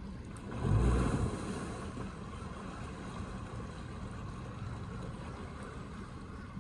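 Pontoon boat's outboard motor running as the boat maneuvers slowly at a dock, a steady hum. A loud low rumble swells and fades about a second in.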